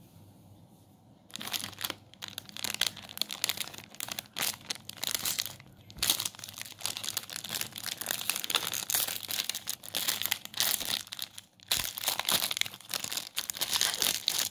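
Shiny plastic cake wrapper crinkling as it is handled and torn open: a dense run of crackles starting about a second in, with a couple of brief pauses.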